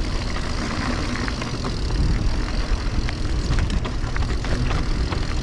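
Mountain bike descending a rocky trail: a steady low rumble of wind and tyres rolling over rock, with scattered clicks and knocks from the bike rattling over the chunk.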